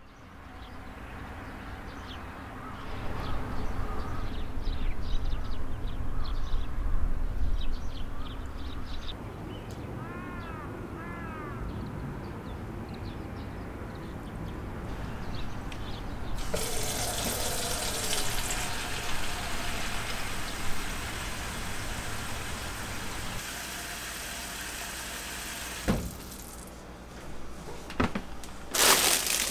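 A low outdoor rumble with a few short bird calls, then from about halfway a kitchen tap running steadily into a sink. Near the end, a sharp click and a loud crinkling of a plastic bag.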